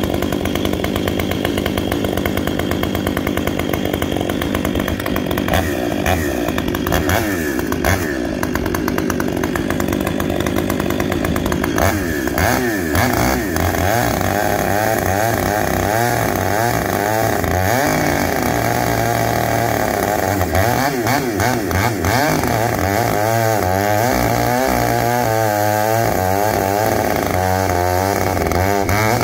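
Stihl MS 500i fuel-injected two-stroke chainsaw running, idling and then revved up and down again and again, the revs rising and falling more often in the second half.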